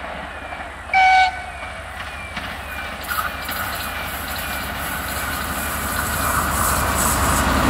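TEP70K diesel passenger locomotive sounding one short horn toot about a second in. Its diesel engine and the train's running noise then grow steadily louder as it approaches.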